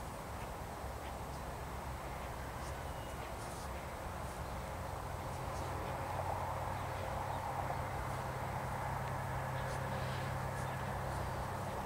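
A steady low hum, like a distant engine, growing louder about halfway through, with a few faint, short, high chirps over it.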